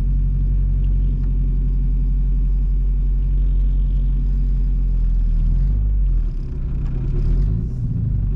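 Engine of a turbocharged Honda Civic Si running low and steady as the car backs out; from about six seconds in its pitch rises and wavers as the throttle is worked.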